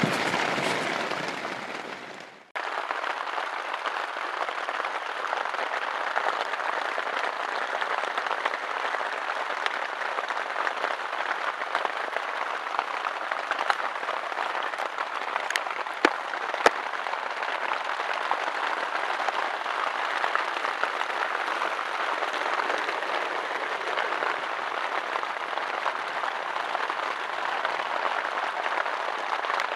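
Heavy rain falling on a tent's fabric, heard from inside the tent as a dense, steady hiss. It fades out about two seconds in and starts again abruptly, and two short sharp clicks come a little past the middle.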